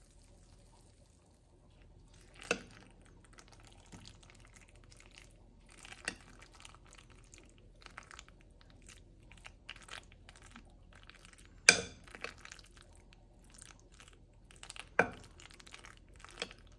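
Metal spoon digging into baked macaroni and cheese: soft sticky squelching of the cheesy pasta, with four sharp clinks of the spoon against the ceramic baking dish, the loudest about two-thirds of the way through.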